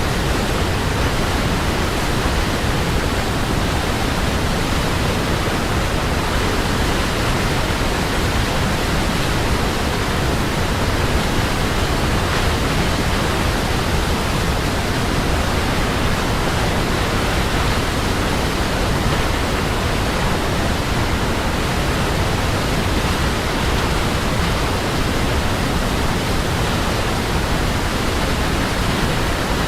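Waterfall, a steady, even rushing of falling water with no breaks or changes.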